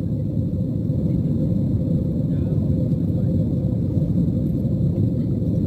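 Jet airliner cabin noise during the climb after takeoff: a steady low rumble of the engines and rushing air, with a steady hum running through it, heard from inside the cabin.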